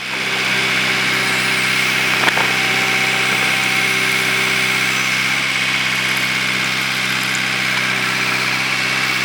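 JCB 3DX backhoe loader's diesel engine running steadily, with a steady high whine over it and one sharp click about two seconds in.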